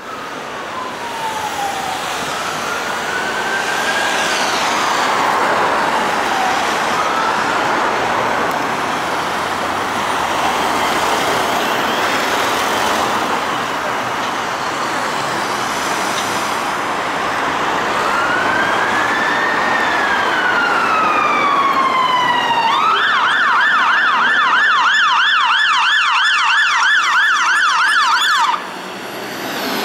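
Electronic sirens of fire engines (a Scania P280 rescue pump and a MAN TG pump) sounding a slow rising-and-falling wail, two tones at times overlapping, over a loud rush of vehicle noise. About 23 seconds in the siren switches to a fast yelp, which cuts off suddenly near the end.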